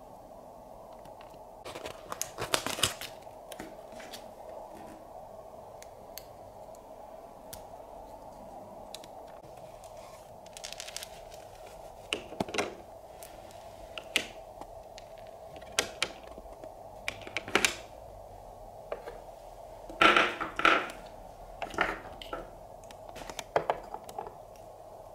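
Small plastic toy pieces being handled, set down and clicked together: scattered clicks and knocks in small clusters, the loudest a little after 20 seconds in, over a steady faint hum.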